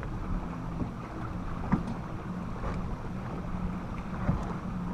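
Wind buffeting the microphone on a bass boat's front deck over a low steady hum, with a couple of light knocks about two and four seconds in.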